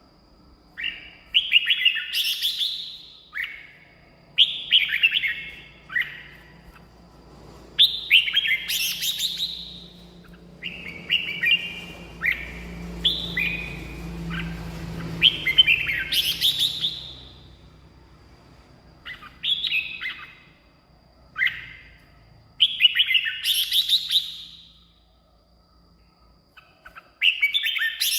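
Red-whiskered bulbul singing: a string of short, bright, warbling whistled phrases, each a second or two long, repeated about a dozen times with brief pauses between them.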